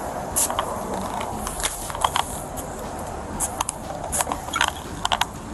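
Scattered sharp clicks and rustling from a body-worn police camera knocking and rubbing against the wearer's uniform as they move, over a steady background hiss.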